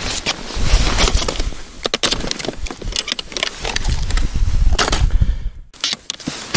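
Sharp plastic clicks and knocks of a tackle box being opened and lures handled, with rustling over a low rumble.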